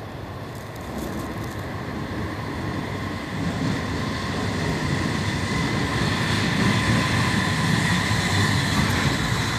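Kobe Municipal Subway Kaigan Line linear-motor train pulling into an underground station, its rumble growing steadily louder as it comes alongside the platform, with a steady high whine over it.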